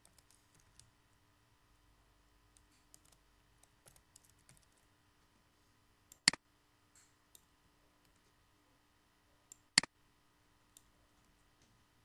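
Computer keyboard and mouse clicks: a scatter of soft key taps in the first few seconds, then two sharp, louder clicks about six and ten seconds in, each just after a fainter one.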